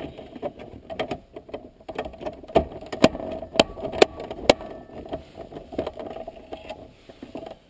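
Plastic shift-boot trim casing being handled and fitted over the boot on the console: scattered clicks and rattles, with a run of five sharp knocks about half a second apart near the middle.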